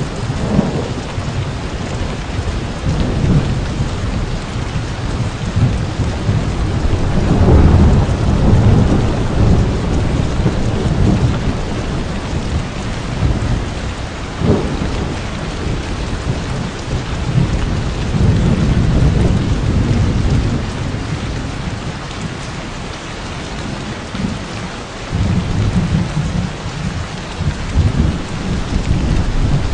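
Heavy rain falling steadily, with low rumbles of thunder swelling and fading several times, the loudest about a quarter of the way in.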